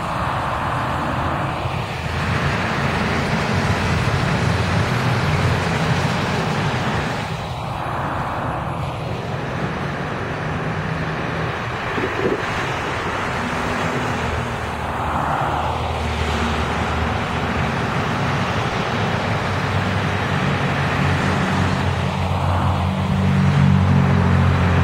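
Street traffic: a diesel city bus drives by and away, with engine drone throughout and several cars passing with a tyre whoosh, about four times.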